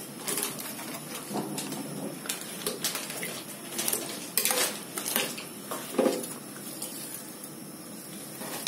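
Metal spatula scraping and knocking against the side and bottom of a metal pot while stirring a load of chopped raw vegetables, in irregular strokes that thin out over the last couple of seconds.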